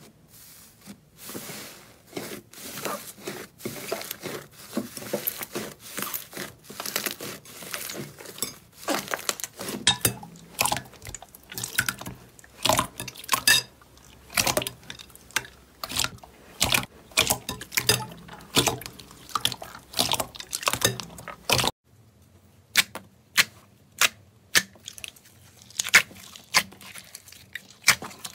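Slime being squeezed and stretched by hand, giving a dense run of wet clicks, crackles and pops. It cuts off abruptly about 22 seconds in, and a slower series of separate sharp pops follows.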